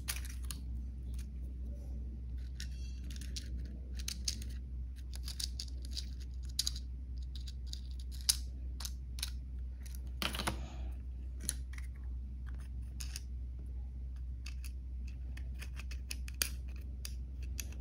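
Scattered small sharp clicks and scratches of plastic drone body parts and thin wiring being handled and fitted, with a brief rustling scrape about ten seconds in.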